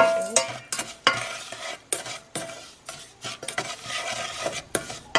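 Wooden spoon stirring and scraping palm sugar and white sugar through oil in a stainless steel saucepan: irregular scrapes and knocks against the pan, several a second.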